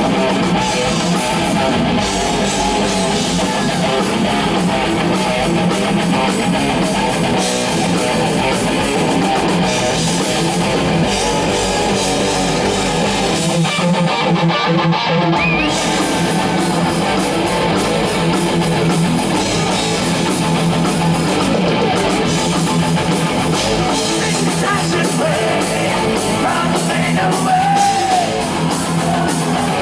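Heavy metal band playing live and loud through a PA: distorted electric guitars, bass guitar and drums, heard from within the crowd. The sound briefly thins out about halfway through.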